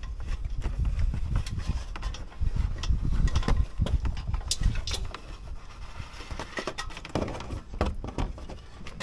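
Handling noise from work on the wiring: scattered knocks and clicks over a low rumble, the rumble loudest in the first half.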